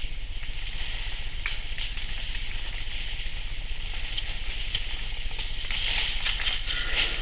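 Sleeping Asian elephant snoring: a steady hiss that swells into a louder, crackly stretch from about six seconds in.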